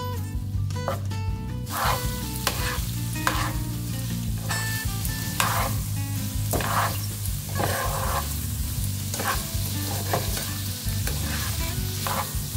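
Steak strips, carrots and broccoli sizzling in sauce in a frying pan while being stirred and tossed, with repeated utensil strokes through the food; the sizzling gets louder about two seconds in.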